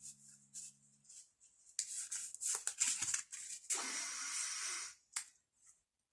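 Handling noise: a run of light clicks and crackles, then about a second of steady rustling, stopping about five seconds in. A faint low hum fades out about a second in.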